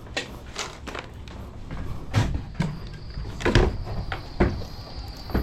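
Toro 60-volt battery stick edger cutting a lawn edge, with irregular knocks and scrapes from the blade and thrown debris over a low rumble. A faint steady high motor whine comes in about halfway through.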